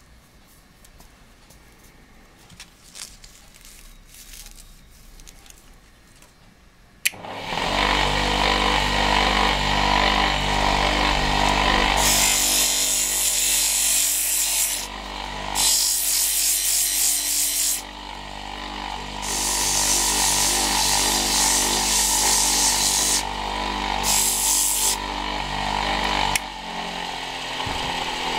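Mini wood lathe switched on with a click about seven seconds in, its electric motor then running steadily with the wooden blank spinning. Sandpaper held against the turning wood hisses loudly in several stretches of a few seconds each. Before the start, only a few light handling knocks.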